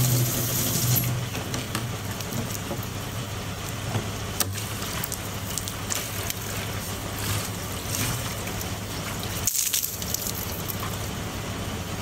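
Water running from a campground spigot into a plastic jerry can, then splashing out onto a metal drain grate as the can is tipped and emptied.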